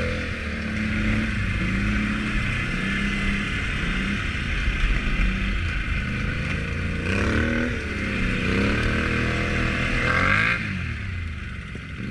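Can-Am Outlander 450 L ATV engine running while being ridden, its pitch rising and falling with the throttle, with stronger revs about seven and ten seconds in.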